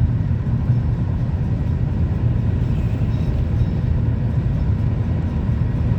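Steady low rumble of a car on the move, heard from inside the cabin: engine and tyre noise with no change in pace.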